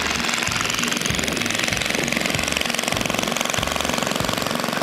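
Small Briggs & Stratton engine on a motorized tricycle running steadily under way, a fast, even pulsing.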